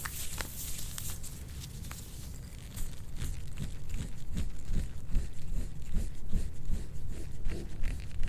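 Instrument-assisted soft-tissue scraping on a patient's back: a scraping tool drawn in repeated short strokes over the skin. The strokes come as dull rubbing thuds a few times a second, starting about three seconds in and growing louder.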